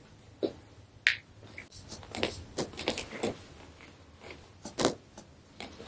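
Scattered light clicks, snaps and rustles, about a dozen over several seconds, from a patient being handled and repositioned on a chiropractic treatment table.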